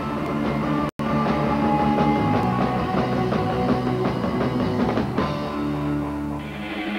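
Rock band playing with electric guitars, bass guitar and drums. The sound cuts out completely for an instant about a second in, and from about five seconds in the drums ease off under held low guitar and bass notes.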